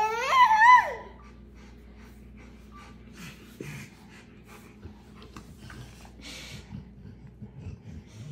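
A high vocal squeal at the very start, about a second long, that rises and then wavers. After it come quiet breathing and snuffling sounds.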